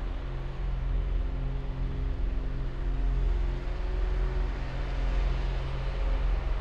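Diesel engine of a tracked logging harvester running steadily under load with a low hum.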